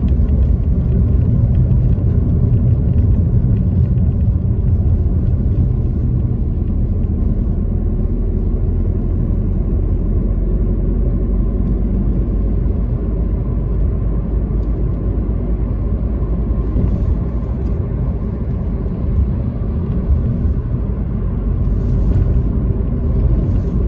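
Car being driven at steady road speed, heard from inside the cabin: a steady low rumble of tyre and engine noise.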